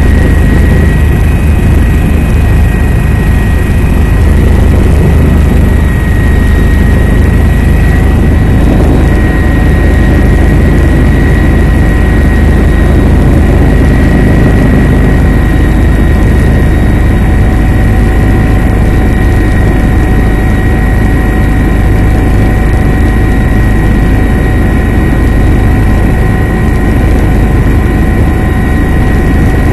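Helicopter in flight: loud, steady rotor and engine noise with a thin steady whine above it.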